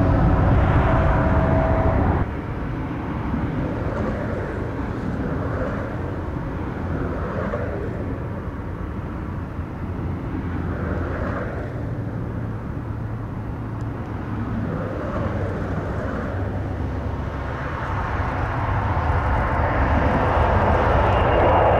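Jet aircraft noise with a steady whine cuts off suddenly about two seconds in, giving way to the lower rumble of a Boeing 747-400F's jet engines, which grows louder over the last few seconds.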